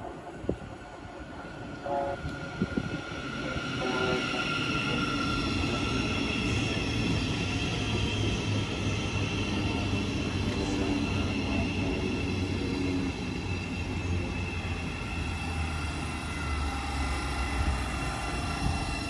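Thameslink Class 700 electric multiple unit running in alongside the platform: the rumble of its wheels on the rails and a high electric whine grow louder over the first few seconds, then run steadily as the carriages pass. A few short sharp sounds come about two seconds in.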